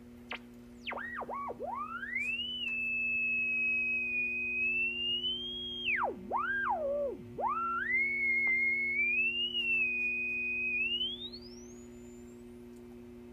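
Silvertone 4586 tube radio on its shortwave band giving a pure whistle that swoops down and up in pitch, holds high for a few seconds, dips and climbs again, then rises steeply and fades out near the end, over a steady low hum. This whistle is the unexplained noise the radio makes after a recap, in place of stations.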